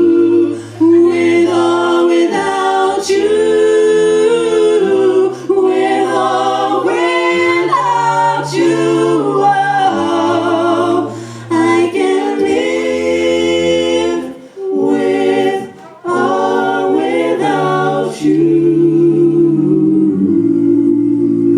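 A cappella vocal group singing in close harmony, several voices stacked over a low bass voice that holds each note for a second or two.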